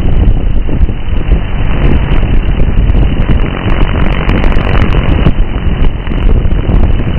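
Wind buffeting the microphone: a loud, dense rush of noise that rises and falls, heavy in the low end.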